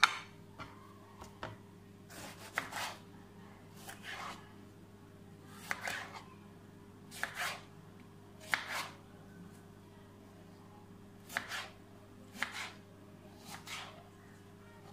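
Kitchen knife slicing a tomato on a plastic cutting board: about eight separate cuts, each a short soft tap of the blade reaching the board, spaced a second or more apart with a longer pause midway.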